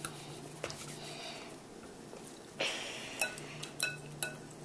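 Wire whisk stirring a thick mixture of sweetened condensed milk and egg yolk in a bowl, with a few light metallic clinks of the whisk against the bowl in the second half.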